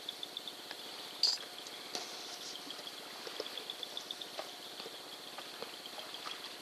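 Soft irregular clicks, snuffles and wet rustling from a wild boar rooting and feeding in swamp grass close by, over a fast, steady, high chirping from the night chorus. There is a brief sharp scrape about a second in.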